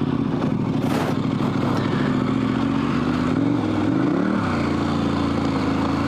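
KTM 1190 Adventure R's V-twin engine running under throttle through deep sand, its pitch dipping and climbing again about four seconds in as the revs change. A short sharp clatter comes about a second in.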